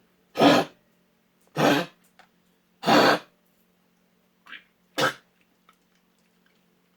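Jack Russell terrier coughing: four loud coughs over about five seconds, with a fainter one just before the last. It is a recurring cough that scans, heart checks and lab tests have not explained.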